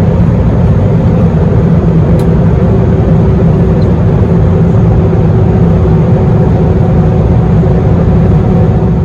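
Airbus A321 cabin noise heard from a window seat in flight: a loud, steady low rumble of airflow and its IAE V2500 turbofan engines, with a faint steady hum of engine tones.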